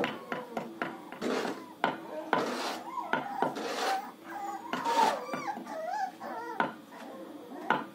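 Beagle puppy whimpering in short rising-and-falling cries, mostly from about three seconds in to about six and a half seconds in, over handling noises of clicks and rustling.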